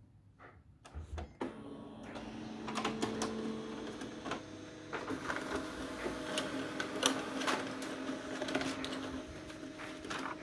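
Photocopier running a copy cycle: a steady motor hum with many clicks and clatters from the scanning and paper-feed mechanism, starting about one and a half seconds in.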